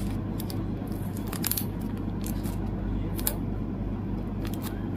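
Clear plastic photocard sleeves crinkling and rustling in a handful of short, sharp crackles as cards are slid in and handled, the loudest about a second and a half and three seconds in. A steady low hum runs underneath.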